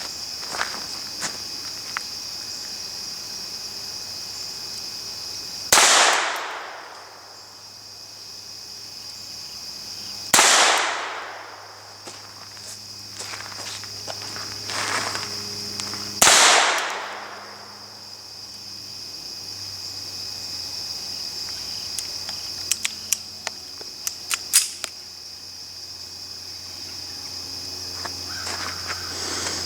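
Three rifle shots about five and six seconds apart, each cracking out and then rolling away in an echo that lasts over a second. A steady high insect drone runs underneath, with a few faint clicks near the end.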